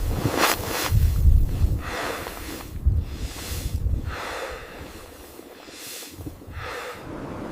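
A person breathing heavily in short noisy puffs about once a second, with wind rumbling on the microphone.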